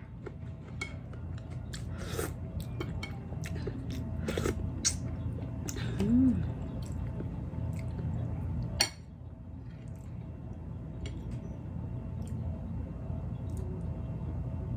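Close-mic chewing and mouth smacks while eating boiled pork, with scattered sharp clicks and taps. The loudest click comes about nine seconds in.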